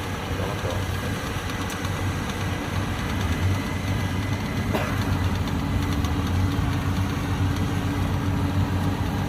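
Rice combine harvester engine running steadily with a low, even hum, growing slightly louder about three seconds in; a single sharp click about five seconds in.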